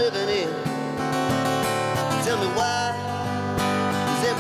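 Two acoustic guitars strumming and picking a rock-and-roll song together, with a man singing the melody in short phrases over them.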